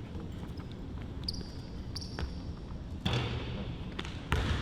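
Basketball dribbled on a hardwood court during a game, with short high sneaker squeaks early on and two louder bounces in the second half.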